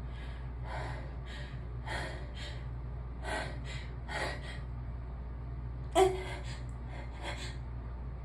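A person's short, repeated gasping in-breaths building up, then one sudden sneeze about six seconds in, followed by a few softer breaths.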